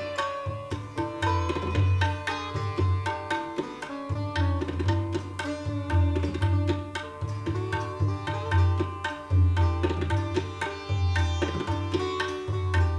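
Sitar and tabla playing Hindustani classical music together: quick plucked sitar melody over the ringing of its strings, with tabla strokes and recurring deep bass strokes from the larger tabla drum.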